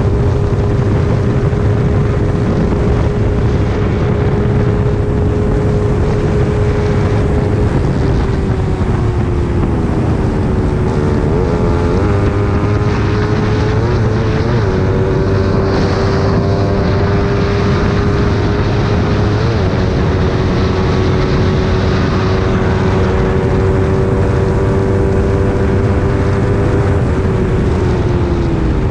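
Small single-cylinder underbone motorcycle engine held at steady high revs at road speed, with wind noise over the microphone. The engine note sags about ten seconds in, blips briefly a couple of times, settles steady again, and drops once more near the end.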